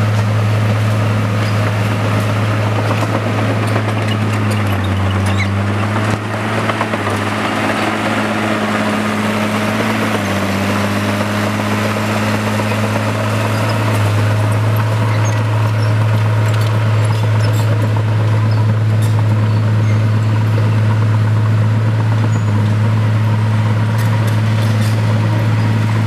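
Crawler bulldozer's diesel engine running with a steady low drone, dipping slightly in pitch about five seconds in and again about ten seconds in.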